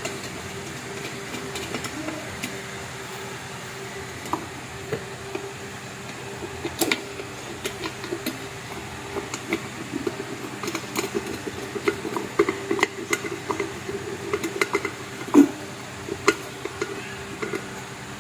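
Scattered clicks and knocks of plastic electric-kettle parts being handled and pressed together as the handle is fitted, becoming more frequent partway through, over a steady background hum.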